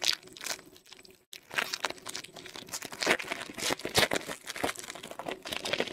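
A foil trading card pack wrapper crinkling and tearing as it is opened by hand, in irregular crackles with a brief lull about a second in.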